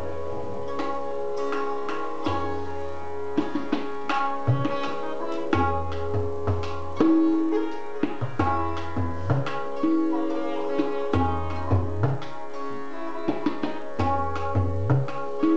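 Sitar and tabla playing together: plucked sitar melody over its ringing strings, with quick tabla strokes and deep bass-drum notes that bend in pitch.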